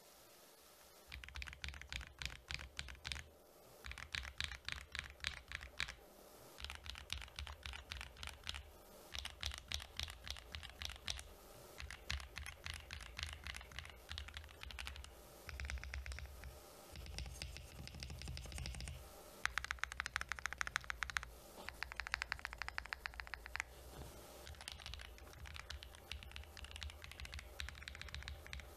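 Typing on a mechanical keyboard fitted with Akko Cream Pro switches. Fast runs of keystroke clacks are broken by short pauses: a switch sound test.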